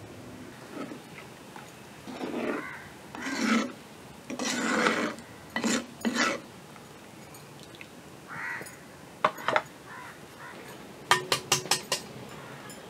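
Kitchen utensils worked against cookware: several scraping, rubbing strokes in the first half. Later come two sharp knocks, then a quick run of four or five clinks near the end that ring briefly.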